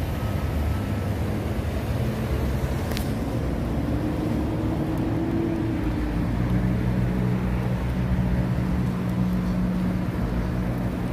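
Road traffic passing close by: a city bus and cars driving past with continuous engine and tyre noise. A steady low engine hum comes in about halfway through, and there is a single sharp click about three seconds in.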